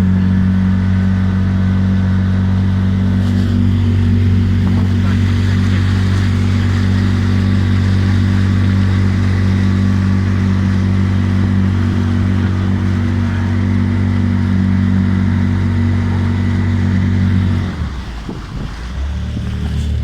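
Engine running at a steady speed, then throttled back about 18 seconds in, its note dropping lower and quieter before settling at a lower steady pitch.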